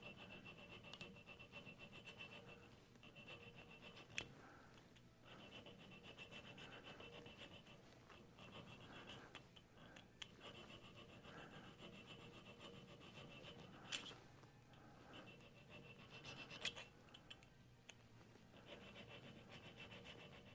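Hand file scraping along the edge of a small metal part in repeated strokes, each one to two and a half seconds long with short pauses between, with a few sharp clicks. The file is rounding over a sharp edge and may be getting dull.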